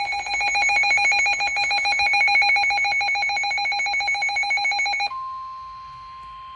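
Electronic emergency alert tone: a loud, fast warble of several pitches at once for about five seconds, then an abrupt switch to one steady tone, the NOAA Weather Radio 1050 Hz warning alarm that comes before a severe thunderstorm warning is read.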